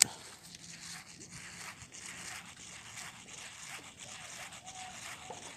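Fishing reel being cranked to retrieve a topwater popper: a faint, steady run of small rapid ticks.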